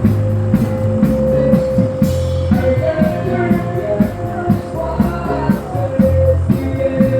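Rock-style song playing: bass, drums and guitar with a steady beat, and a melodic line weaving in and out in the middle.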